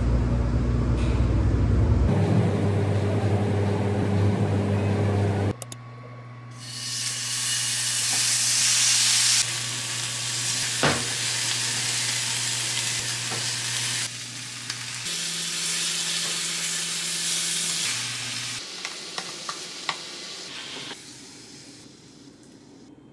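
Slices of lean beef frying in a pan, sizzling in stretches, with a click of tongs against the pan and some scraping as the meat is moved. For the first five seconds or so a loud, steady low hum comes before the frying.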